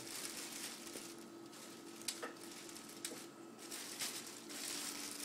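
Clear plastic sterile drape rustling and crinkling in on-and-off bursts as it is handled over a surgical microscope's eyepieces, with a few sharp clicks about two and three seconds in. A faint steady hum runs underneath.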